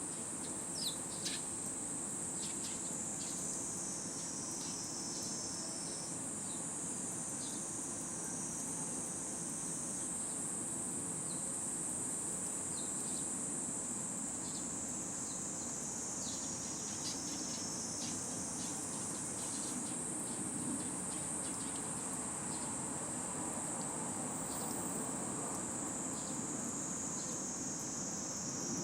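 A continuous, high-pitched insect drone that slowly wavers in pitch, with faint short chirps scattered through it.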